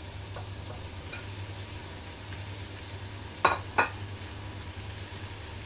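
Carrot pieces frying with a faint sizzle in a hot pan, over a steady low hum. About three and a half seconds in come two sharp clicks of a utensil on cookware, less than half a second apart.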